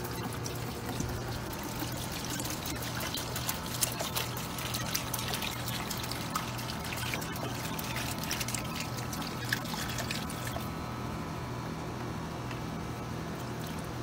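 A bottle of citric-acid descaling solution poured into a bucket, splashing and trickling for about ten seconds before it stops. A steady low hum runs underneath.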